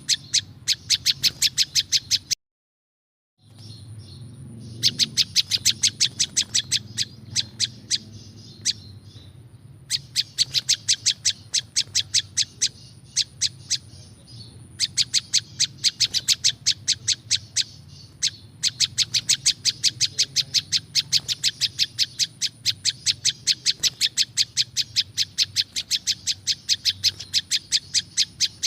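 Prenjak lumut bird singing: long runs of sharp, high chirps repeated about five times a second, broken by short pauses and by a second of silence near the start.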